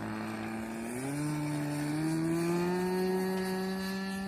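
Two-stroke O.S. .55 glow engine of an RC sport plane running at high throttle in flight on 15% nitro fuel. Its pitch climbs about a second in, then holds high and steady.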